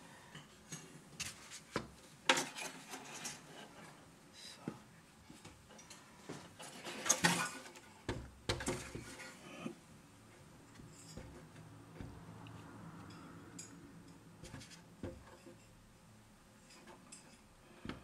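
Light knocks, clicks and rattling of hard parts being handled: an RC crawler's steel tube frame with its fibreglass body being set on a scale to be weighed. The two loudest knocks come about two seconds in and about seven seconds in.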